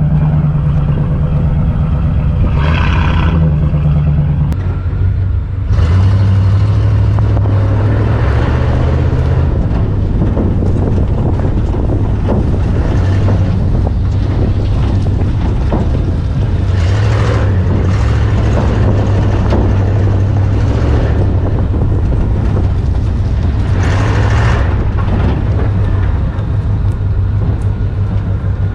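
Truck engine running loud and steady as the truck is driven, its pitch rising and falling with the throttle and dropping noticeably about six seconds in. Repeated surges of rushing, rattling noise come over it every few seconds.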